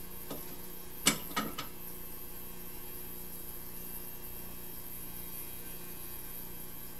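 Small hand tools being handled on an electronics repair bench: a sharp click about a second in, then two lighter clicks, over a steady electrical hum.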